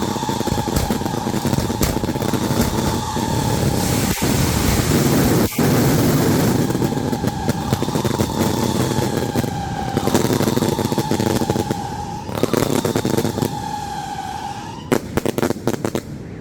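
Fireworks going off: continuous crackling and hissing with a steady whistling tone that comes and goes, then a quick run of sharp bangs near the end.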